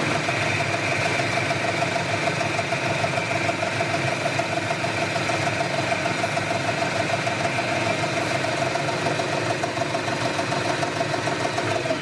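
Metal lathe running steadily, its chuck spinning a small shaft that is being finely turned down to about 8.2 mm.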